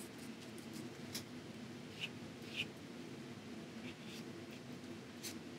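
Faint scratchy strokes of a paintbrush, dabbing acrylic paint on a palette and then brushing it onto gessoed watercolor paper, a handful of short strokes over a low steady hum.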